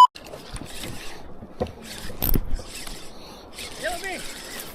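Background on a fishing boat: a steady hiss of wind and water, two knocks about a second and a half and two seconds in, and faint voices near the end.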